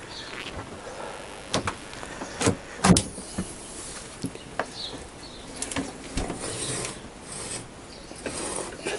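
Irregular metal knocks, clanks and scraping from a stripped Honda CBR1000F motorcycle frame being handled and levered up onto its main stand. The loudest knock comes about three seconds in.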